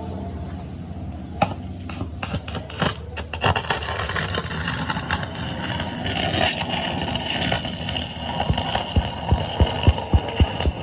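An engine running steadily with a low hum. There are scattered sharp clicks in the first few seconds and a quick run of about seven low knocks near the end.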